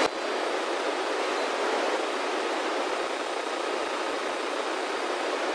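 Steady FM static hiss from a handheld VHF radio receiving the ISS downlink on 145.800 MHz, the station's voice lost in noise: poor reception with electromagnetic interference.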